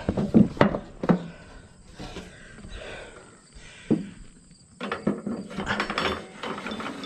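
Irregular knocks and clatter from a copper horse weathervane top being handled and slid down over its mast. There are several sharp knocks in the first second, one near the middle and a busier run of clatter near the end.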